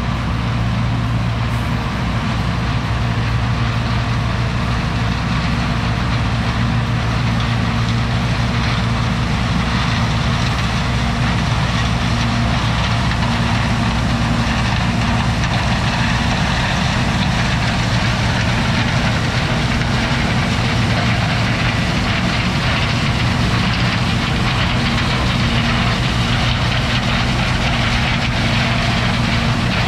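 John Deere 6620 combine running steadily while harvesting corn: a constant diesel drone with a strong low hum that holds the same pitch throughout.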